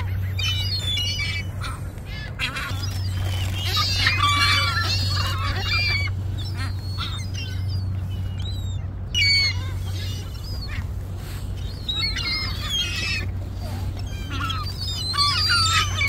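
A flock of gulls calling, many short squawking calls overlapping and coming in clusters, over a steady low rumble.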